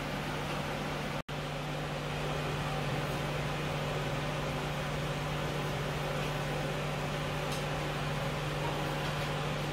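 A fan or small appliance motor running steadily with a constant low hum. The sound cuts out completely for an instant a little over a second in.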